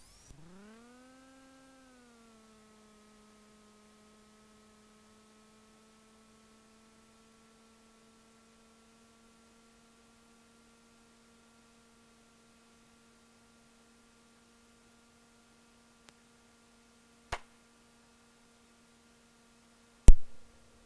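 Electrical whine in the cockpit audio: it rises in pitch over about two seconds, then settles into a steady hum. A sharp click comes about 17 seconds in and a louder click near the end.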